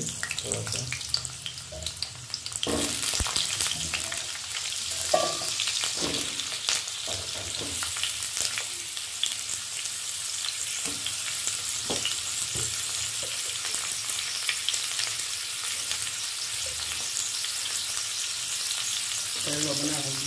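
Pumpkin and potato pieces frying in hot oil in a kadhai, a steady sizzle with scattered crackles. The sizzle grows much louder about three seconds in, as the rest of the pieces go into the oil, and a few knocks sound against the pan.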